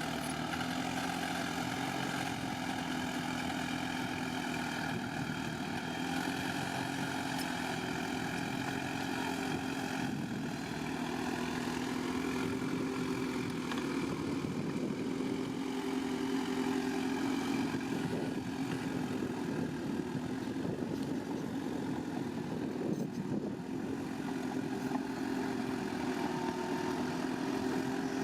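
Bulldozer's diesel engine running steadily, its engine note holding an even pitch with small dips and recoveries.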